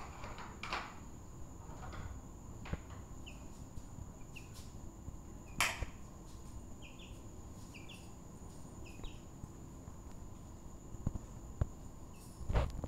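Young chicks cheeping: a few short high peeps, with several in quick succession about seven to nine seconds in. A few sharp knocks or taps come in between, the loudest about halfway through.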